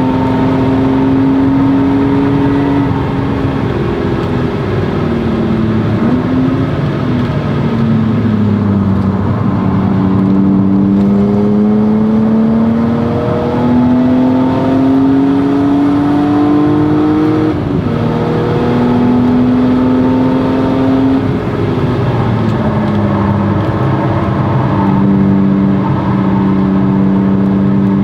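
BMW E36 M3's straight-six engine and Stromung cat-back exhaust under hard track driving, the revs climbing through the gears, dropping sharply at upshifts and sinking back off the throttle for corners.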